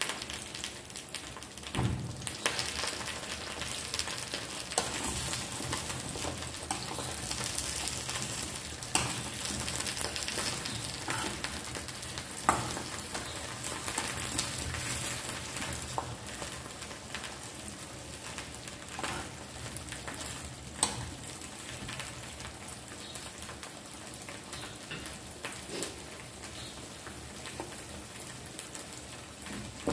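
Food frying in hot oil in a cooking pan, sizzling steadily, while a spoon stirs it and clicks against the pan every few seconds.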